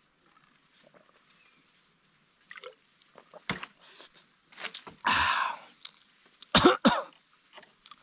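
A man coughs and clears his throat just after drinking from a bamboo tube: a loud breathy exhale about five seconds in, then two sharp coughs in quick succession a second and a half later.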